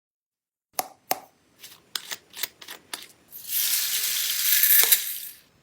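About eight sharp clicks spread over two seconds, then a steady hiss lasting about two seconds.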